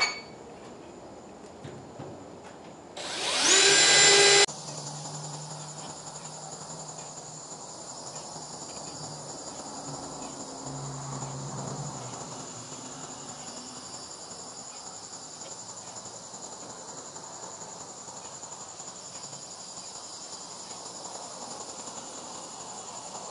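Cordless drill with a step bit whirring once for about a second and a half, about three seconds in, its pitch rising as it speeds up. Then a steady high insect trill.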